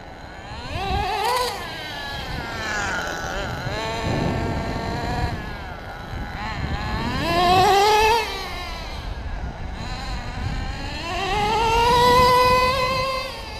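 HPI Firestorm 10T nitro RC truck's small two-stroke glow engine revving in three rising bursts. The first is short, about a second in. The second climbs and cuts off sharply about halfway through, and the third, near the end, is the longest and loudest, with the engine running lower and rougher between them.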